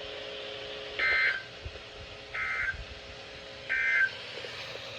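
NOAA Weather Radio end-of-message signal: three short bursts of the SAME digital data tone, each about a third of a second long and about a second apart. They mark the end of the tornado watch broadcast.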